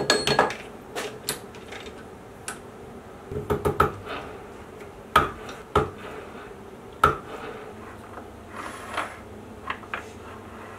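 Irregular metal knocks and clanks as a steel shaft is seated in a lathe's four-jaw chuck and tapped into line with a small mallet. The loudest are a handful of sharp raps with a brief ring, between lighter clicks of tools and parts.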